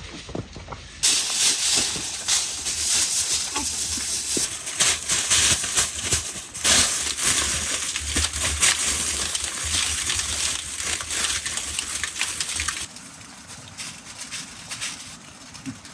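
Aluminium foil crinkling and crackling as it is crumpled and pressed around a clay tandoor oven. The dense crackle starts abruptly about a second in and drops away near the end.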